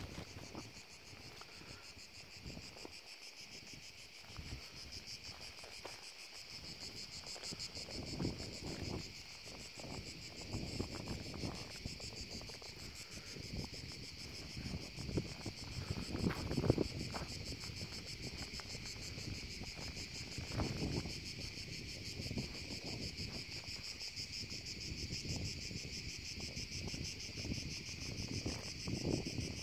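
A steady, dense chorus of insects chirring high in pitch, with gusts of wind buffeting the microphone now and then, the strongest about halfway through.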